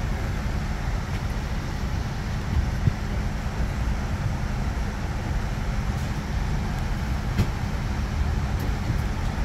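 Steady cabin noise inside a Boeing 787-9 airliner: an even low rumble with a hiss over it, and a couple of faint clicks.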